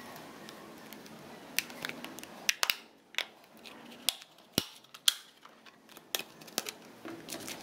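Snap-on plastic back cover of a Samsung Galaxy Grand being prised off the phone, its clips letting go in about a dozen sharp, irregular clicks and snaps, with the sound of fingers handling the phone in between.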